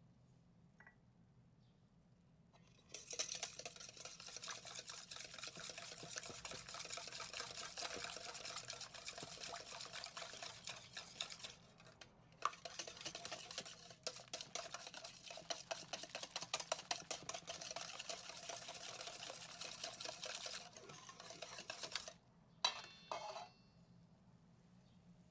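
Hand whisk beating ingredients in a mixing bowl: rapid, steady clicking of the wires against the bowl in two long runs with a short pause between them. A brief clatter of utensil on bowl comes near the end.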